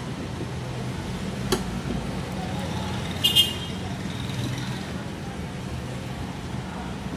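A long screwdriver turning a bolt into a scooter's rear grab rail. There is a sharp click about a second and a half in, and a short ringing metallic clink about three seconds in, over a steady low background drone.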